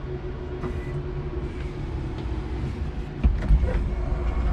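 Electric forklift running, heard from its cab: a steady hum over a low rumble, which grows louder about three seconds in as the truck works.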